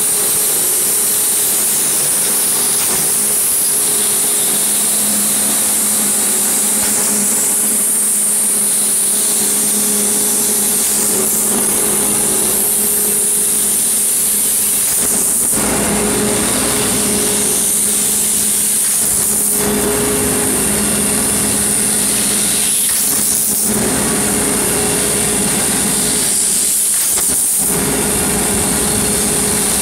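Steel wire straightening and cutting machine running steadily: a loud, continuous mechanical whir with a high hiss and a constant hum.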